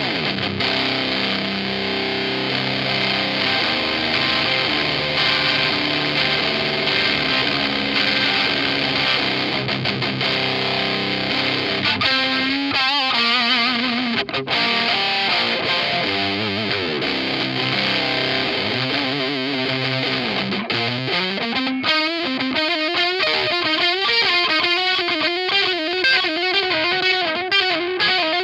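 Distorted electric guitar played through a Zander Circuitry Terra Firma fuzz/power-amp-style distortion pedal. It rings out held chords, then about three quarters of the way in moves to single notes with wavering bends and vibrato.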